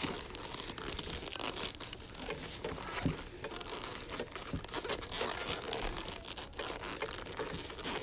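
Padded boxing gloves scuffing and rustling against each other and against a Rubik's cube, with scattered small clicks of the cube's layers being turned and a knock about three seconds in.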